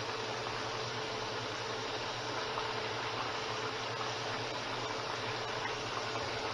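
Flour-coated chicken back pieces sizzling steadily as they deep-fry in hot oil in a stainless steel pan.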